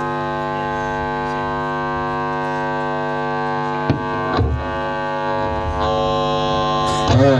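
Steady electric drone of amplified stage gear between songs, an amp buzz or ringing guitar tone held at one pitch, with a sharp click about four seconds in. Near the end a louder sound with a wavering pitch comes in.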